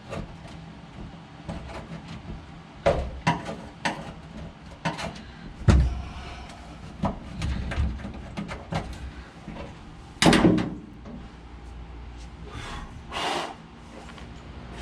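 Hands working a shifter cable through a hole and fitting the air shifter, making scattered clicks and knocks. There are louder thumps about six and ten seconds in, and two short scraping swishes near the end.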